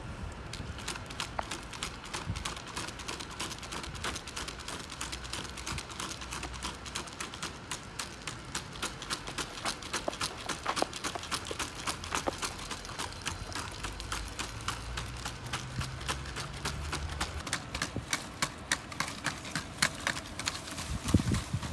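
Unitree Aliengo quadruped robot's feet tapping on asphalt as it walks and trots, a quick, uneven run of clicks several a second. Near the end a few heavier thumps.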